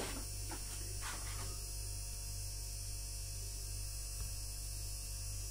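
Steady electrical mains hum with a faint hiss, and a few soft taps in the first second and a half.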